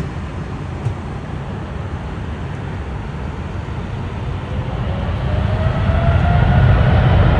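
Boeing 777-200's twin jet engines at takeoff power: a steady low rumble that grows louder over the last few seconds, with a whine rising in pitch from a little past the middle.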